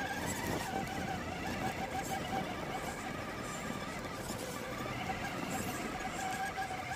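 Electric motor and gear drive of an RC scale crawler (Absima 3.4 chassis) whining steadily at low speed while it crawls over loose dirt and rocks.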